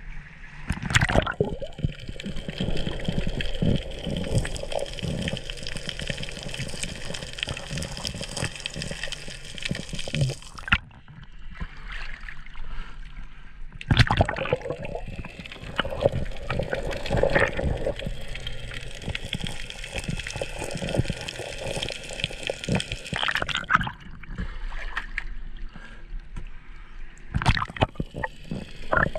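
Water splashing and gurgling as a diver goes under beside a dock piling, with two long stretches of muffled underwater hiss and crackle, each begun and ended by a splash.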